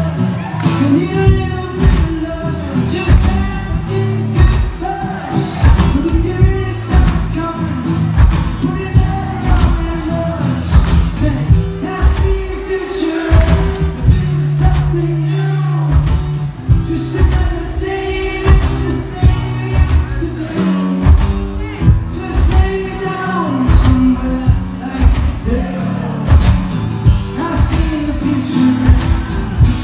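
Live acoustic rock band playing a song: a man singing lead over strummed acoustic guitar, with tambourine and a steady beat.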